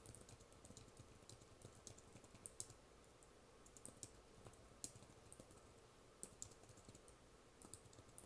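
Computer keyboard being typed on: soft, irregular keystrokes in quick runs, with short pauses between them.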